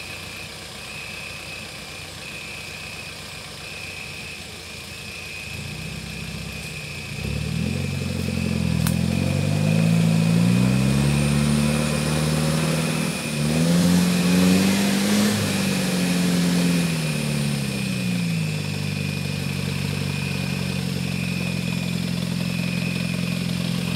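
An off-road vehicle's engine pulls up a muddy trail. It revs up about seven seconds in, eases off, revs again around thirteen seconds, then settles into steady running. A steady high-pitched tone runs throughout.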